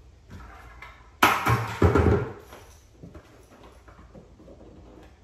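Plastic bucket dragged across a concrete garage floor: a loud, juddering scrape starting about a second in and lasting about a second, followed by faint knocks and handling noises.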